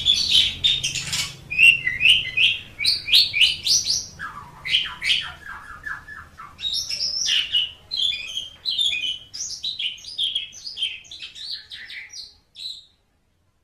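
Asian pied starling (jalak suren) singing: a long, varied run of rapid chirps, whistles and rasping notes, with a lower, stuttering passage about four to six seconds in. The song stops abruptly near the end.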